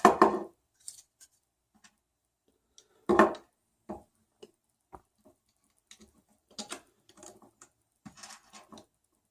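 Parts of a 3D printer kit being handled and fitted together: a printed plastic part, the X-axis stepper motor and small screws. Irregular clicks and knocks, with two louder handling sounds, one at the start and one about three seconds in, and a run of small clicks near the end.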